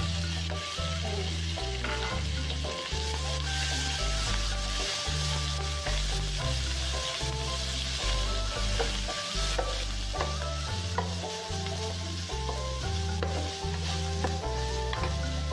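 Curry paste, garlic and sliced aromatics sizzling in hot oil in a pan, stirred and scraped about with a wooden spatula, with small clicks of the spatula against the pan. Background music with a bass line changing note about every half second plays under it.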